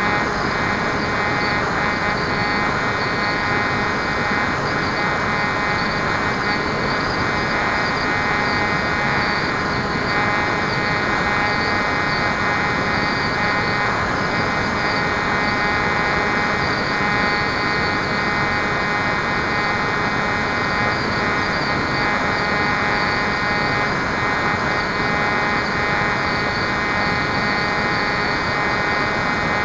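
Electric pusher motor and propeller of a Bixler foam model plane running steadily in cruise, heard from on board as an even, noisy drone with a steady whine and rushing air.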